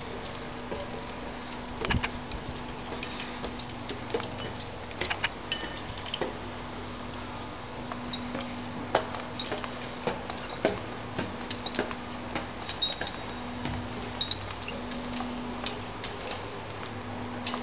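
Footsteps and irregular metallic clinks and knocks on steel stairs and walkways, over a steady low hum.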